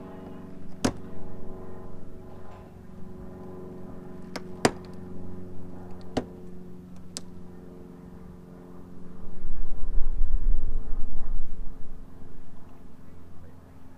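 Sharp clicks and snaps of a trim tool prying at the plastic rear bumper and its reflector, about five in the first half, over a steady low-pitched hum. A loud low rumble, handling noise close to the microphone, follows about two thirds of the way in.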